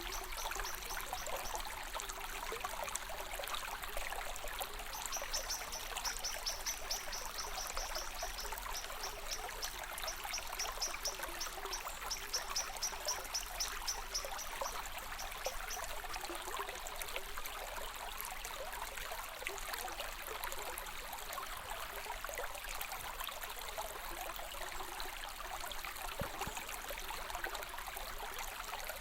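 Stream water running and trickling steadily. A fast, high-pitched chirping repeats over it for about ten seconds in the first half.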